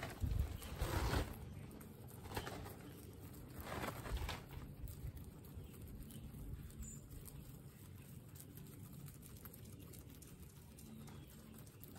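Guinea pigs munching and tugging at fresh grass blades, a soft irregular crunching and rustling that is busiest in the first four seconds, then quieter.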